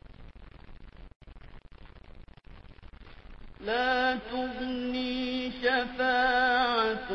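Faint hiss, then, about three and a half seconds in, a single reciter's voice resumes melodic Quran recitation (tajwid), holding long, slowly wavering drawn-out notes.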